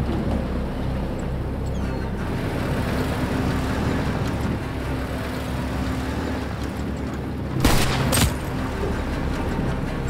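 Open-top army jeep's engine running under a music score, then a sudden burst of gunfire with two loud cracks about half a second apart, about three-quarters of the way through.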